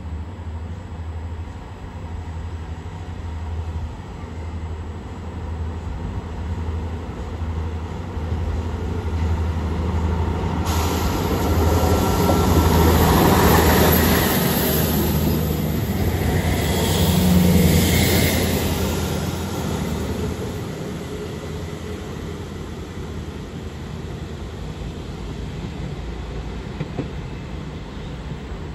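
Class 159 Sprinter diesel multiple unit passing along the platform, its underfloor diesel engines running over the rumble of its wheels on the rails, with high squealing tones from the wheels. The sound swells suddenly about ten seconds in, is loudest as the train goes by, and then fades as it draws away.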